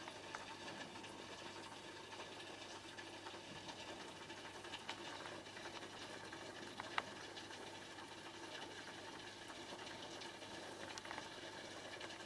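Faint, steady bubbling and trickling of aquarium water from the tank's aeration and filter pump, with a few light clicks, the sharpest about halfway through.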